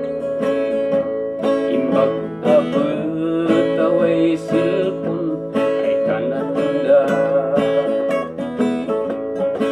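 Two acoustic guitars playing an instrumental passage of a folk song, chords strummed in a steady rhythm with held notes ringing underneath.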